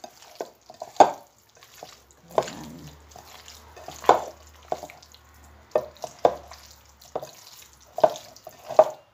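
Raw chicken pieces being mixed by hand in an oily marinade in a glass bowl: irregular wet squelches and slaps, about one a second.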